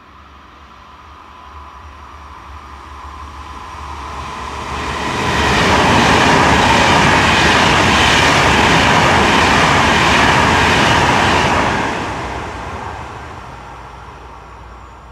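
A train passing at speed: it swells over several seconds, stays loud for about six seconds, then fades away. A steady high whine is heard as it approaches.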